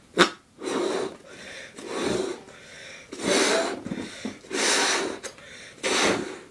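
A rubber balloon being blown up by mouth: about five long, airy puffs of breath into it, one every second or so, after a sharp click at the start.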